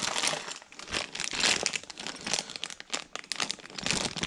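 Plastic packaging crinkling and rustling in irregular bursts as parts are handled and unwrapped from a box.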